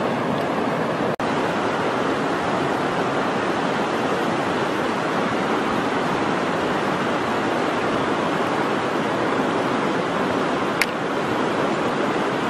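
Steady rushing noise with no rhythm, cut by a brief dropout about a second in, and a single sharp click near the end.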